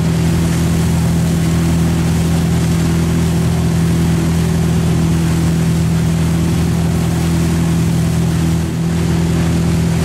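Motorboat engine running steadily at wake-surfing speed, a constant low drone, with the rush of the churning wake behind it. The drone dips briefly near the end.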